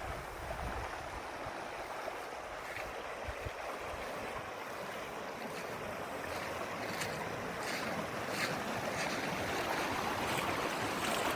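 Steady rush of flowing river water, with a few faint clicks in the second half.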